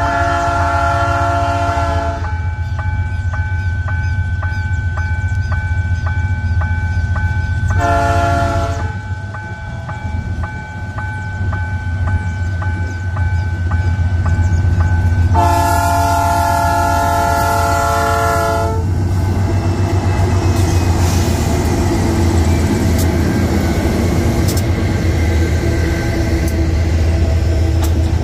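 Freight diesel locomotive sounding its several-note chord horn: a long blast, a short one about eight seconds in, and a longer one around sixteen seconds, over the steady low rumble of the engine. From about nineteen seconds the locomotive and its hopper wagons pass close by, the wheels rattling and clattering over the rails.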